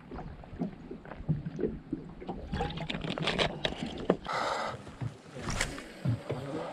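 Small boat rocking on the water, with scattered knocks and clicks from the hull and fishing gear being handled, and a short rushing burst about four seconds in.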